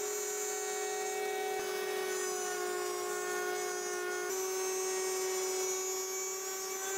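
Router in a router table running a dovetail bit with a steady high whine while a dovetail groove is cut into a plywood jig. The pitch drops slightly about a second and a half in and comes back up a little past four seconds.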